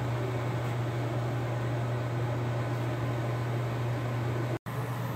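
Steady low hum with even hiss, the background noise of a small workshop, broken by a split-second dropout near the end.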